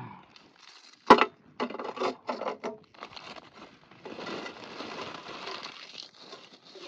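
Crinkling of a thin plastic snack packet being torn open and emptied, with crunchy namkeen (sev) rustling out onto a steel plate. A sharp click about a second in is the loudest sound, followed by short crackles and then steady rustling.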